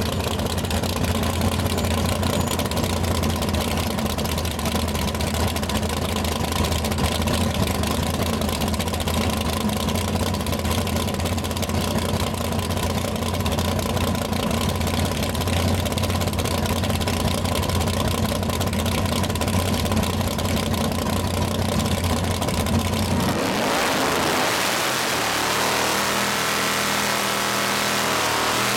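Big-block Chevy V8 in a 1967 Camaro idling steadily. About 23 seconds in it revs hard for a burnout, the engine speed rising and falling with the rear tyres spinning.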